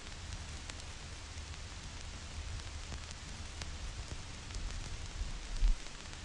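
Vinyl record crackle: steady surface hiss with scattered small clicks and pops from the stylus in the groove, over a low rumble, with one brief low thump near the end.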